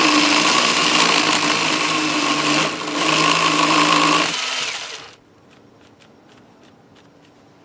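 A Ryobi cordless drill driving a 6-inch chainsaw attachment, with the chain running against a wooden branch in a steady buzzing whine. It dips briefly about three seconds in, then winds down and stops about five seconds in, leaving only faint light clicks.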